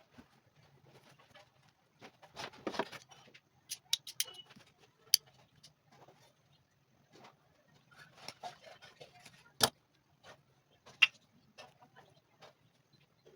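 Scattered sharp clicks and taps with a short scraping stretch about two to three seconds in, from hand tools working on a leather sneaker, over a faint low steady hum.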